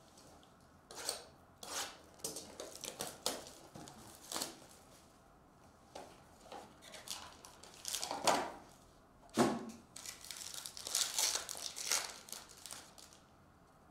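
A sealed cardboard box of football cards being handled and opened, then a foil card pack torn and crinkled open. Scattered rustles run throughout, with two sharper tearing snaps about eight and nine seconds in and a dense run of foil crinkling near the end.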